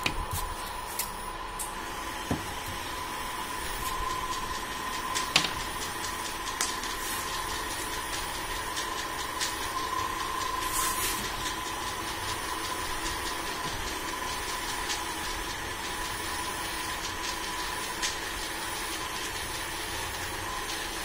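Steady mechanical hum and hiss with a thin, steady whine, broken by a few light clicks and one short hiss.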